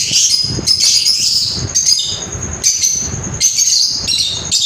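Many aviary birds chirping and chattering at once, a dense, continuous high-pitched flock chatter.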